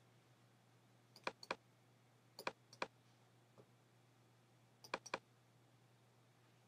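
Sparse clicking from working a computer: three quick clusters of about three sharp clicks each, about a second, two and a half seconds and five seconds in, with one faint click between. A faint steady low hum runs underneath.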